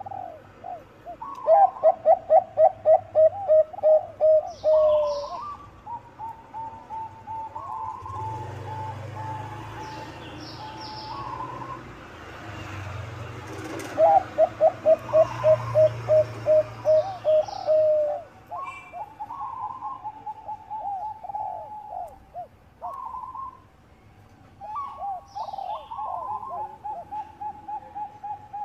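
Bangkok perkutut (zebra doves) cooing. Two loud runs of rapid staccato coo notes come about a second and a half in and again about fourteen seconds in, with softer, higher coo phrases between and after them, and faint high chirps above.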